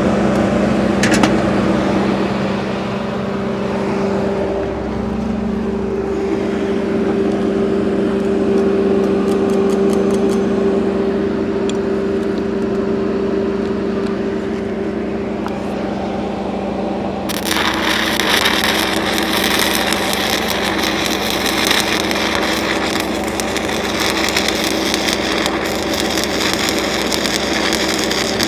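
An engine runs steadily with a constant hum, typical of an engine-driven welding machine. About two-thirds of the way through, a stick-welding arc strikes and crackles continuously as a cellulose electrode burns in a downhill pass on steel pipe.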